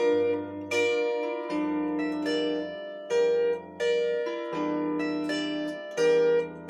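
Solo bandura playing a slow melody of plucked notes that ring and fade, with low bass strings sounding under the tune.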